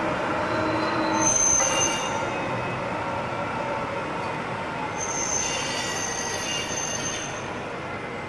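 Breda low-floor tram running along a street track with a steady rumble. Its wheels squeal high-pitched on the bend twice: briefly about a second in, and again for a couple of seconds from about five seconds in.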